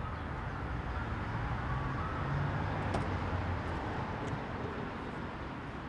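Steady low rumble of a car, engine and road noise heard from inside the cabin.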